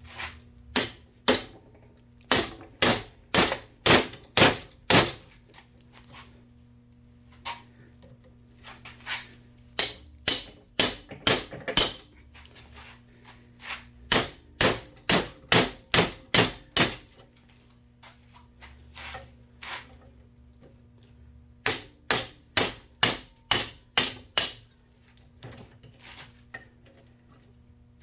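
Hammer striking a pointed steel round-bar punch to drive cut copper windings out of an electric motor's stator. Sharp metallic blows come two or three a second in four runs, with short pauses between them.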